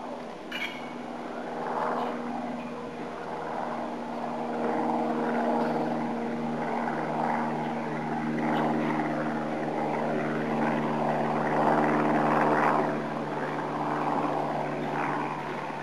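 A steady mechanical drone of several low tones, with a rushing noise rising and falling over it.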